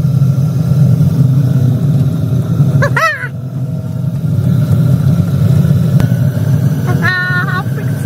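Diesel air heater running with a steady low drone from its blower: the heater has lit and is putting out hot air.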